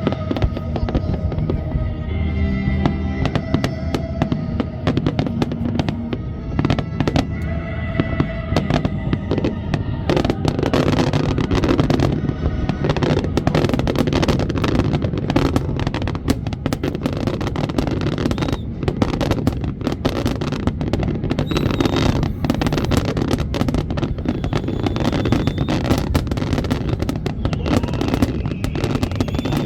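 Fireworks display: aerial shells bursting and crackling over the show's music, the bangs coming thick and fast from about a third of the way in.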